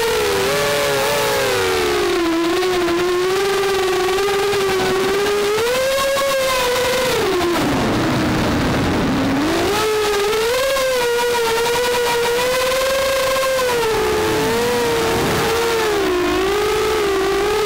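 Walkera F210 racing quadcopter's brushless motors and propellers whining, heard from its onboard action camera, the pitch rising and falling with the throttle. About eight seconds in the whine drops low under a rushing noise and then swoops back up.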